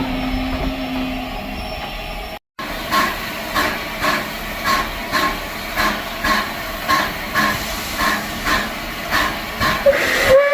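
Bulleid Battle of Britain class steam locomotive 34067 Tangmere: a steady hiss with a low hum, then rhythmic steam beats about two a second, and near the end its steam whistle starts sounding a steady tone.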